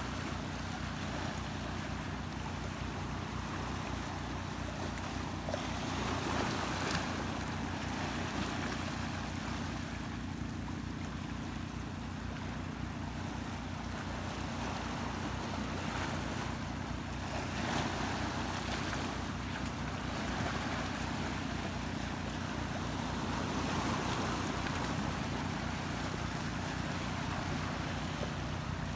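Sea waves washing and splashing against a rocky shore, with wind on the microphone and a steady low hum underneath.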